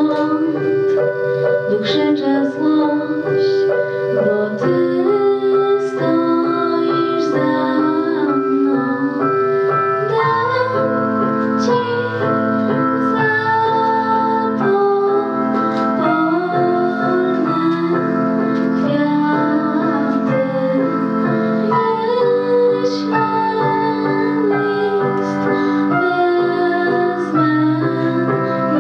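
Female singer performing a song live over a keyboard and piano accompaniment.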